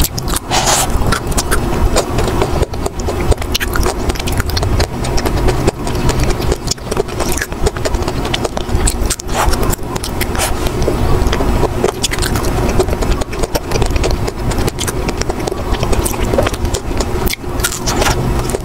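Close-up crunching and chewing of a hard-frozen milk ice cream bar: dense, irregular crisp cracks and clicks as it is bitten and broken up in the mouth, over a steady low hum.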